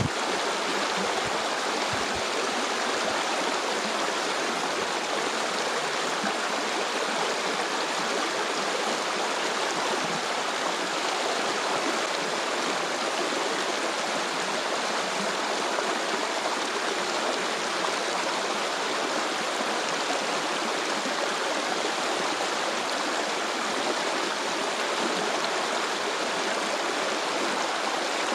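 Stream water flowing steadily, an even, unbroken sound of running water.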